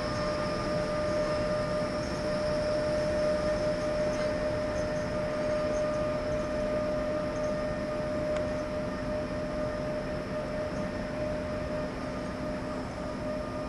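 Electric locomotive moving slowly, its electrical equipment giving a steady humming whine at one fixed pitch, with a lower hum joining about five seconds in.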